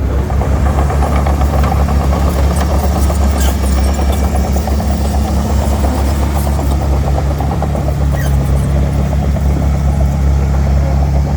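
Heavy-equipment diesel engine running steadily at working speed, with scattered sharp metallic clicks and squeaks over it.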